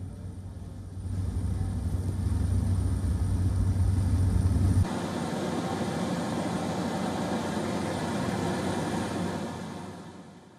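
Steady low drone of an aircraft's engines over aerial footage. About five seconds in it cuts suddenly to a steady rushing cabin noise heard from inside the aircraft, which fades near the end.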